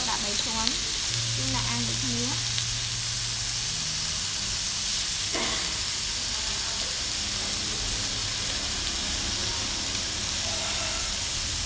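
Beef and bacon sizzling on a hot dome-shaped tabletop grill, a steady frying hiss.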